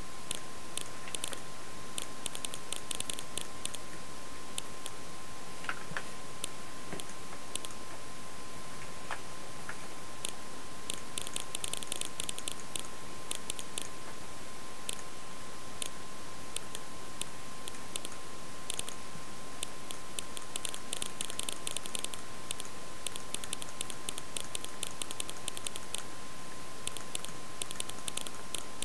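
Computer keyboard typing in quick bursts of clicks, with scattered single clicks between, over a steady hiss and a faint steady high whine.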